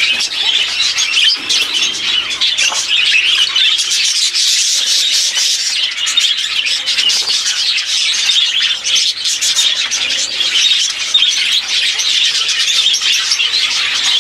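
A flock of budgerigars chattering with a dense, continuous run of rapid chirps and squawks.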